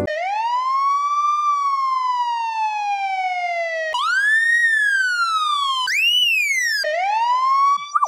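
Police car siren sounding its wail. One slow rise and fall comes first; then, about four seconds in, come quicker wails pitched higher, a sped-up edit of the same siren. Near the end a slower wail starts rising again.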